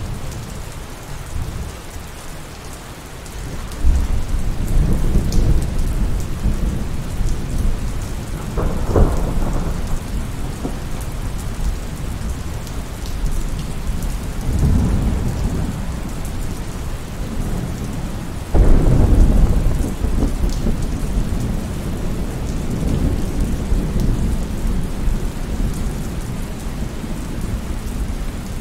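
Steady rain with rolling thunder. Deep rumbles come and go, with a sharper crack near the middle, and the loudest thunderclap comes about two-thirds of the way through, rumbling on afterwards.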